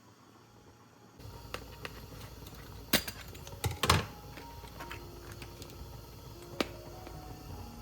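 Scattered sharp clicks and knocks, the loudest about three seconds in and a quick cluster just before four seconds, with another near the end, over a low steady background.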